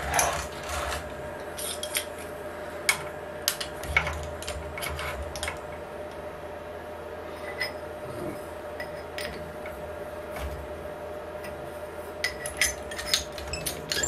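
Metal tools and parts being handled at a milling machine: scattered clinks, knocks and scrapes, busiest at first and again near the end, over a steady hum.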